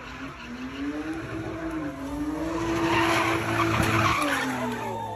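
A sedan's engine held at high revs while its tyres spin and skid on asphalt in a slide. The engine pitch climbs over the first three seconds, holds, and drops near the end. The tyre screech is loudest about three to four seconds in.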